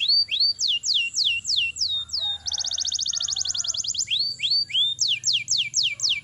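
Domestic canary singing: a run of high downward-sweeping whistled notes, then a rapid rolling trill about two and a half seconds in. After the trill come short rising notes and more sweeping notes.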